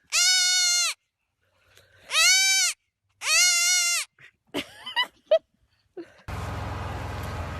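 A goat bleating three times, loud, high-pitched calls of just under a second each with short pauses between. About six seconds in, a steady low hum and hiss sets in.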